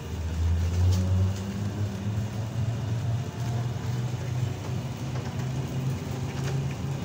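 ZiU-682G trolleybus under way, heard from on board: a steady low hum of the traction motor and running gear, loudest in the first second and a half, with a couple of sharp clicks about a second in.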